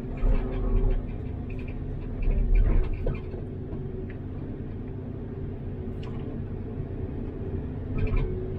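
Caterpillar 329D excavator's diesel engine running steadily, with a louder low rumble swelling a few times: just after the start, around two and a half seconds in, and near the end.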